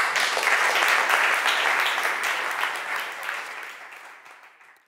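Audience applauding, many hands clapping together; the applause fades out near the end and stops.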